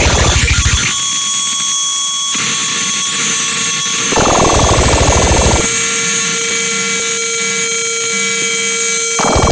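Experimental noise music: a steady high hiss-like drone runs under held electronic tones, while harsh, rapidly pulsing buzz blocks cut in abruptly three times, at the very start, from about four to five and a half seconds in, and again near the end.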